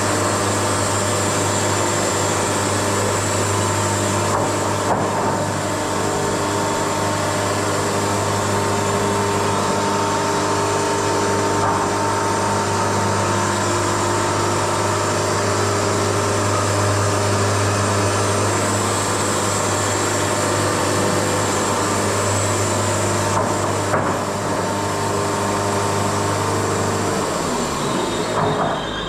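Wood-Mizer LT70 sawmill running steadily with a constant machine drone; its low pitch drops near the end.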